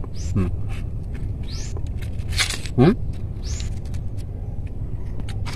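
Pomelo segments being pulled apart and peeled by hand, the pith and membrane tearing in short crackles and clicks, one louder tear nearly three seconds in. A steady low rumble runs underneath.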